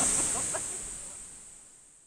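Outdoor valley ambience of a stream's steady rushing with a high hiss, a few short chirps in the first half-second, fading out to near silence.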